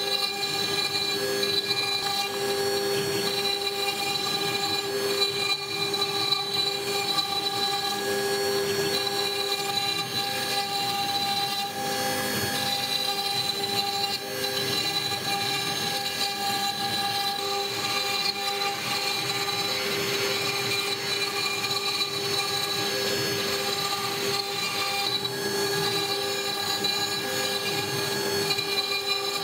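CNC-6090 router spindle running with a steady whine as its bit mills wet sandstone, with a grinding cutting noise underneath.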